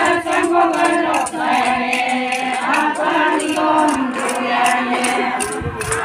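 A group of women singing together in unison, in short phrases of held notes with brief breaks between them.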